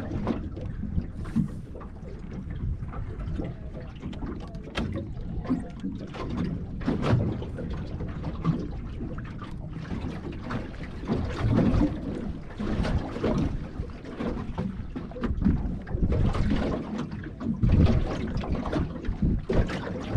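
Wind noise on the microphone, coming in uneven gusts, with water lapping against a small boat's hull at sea.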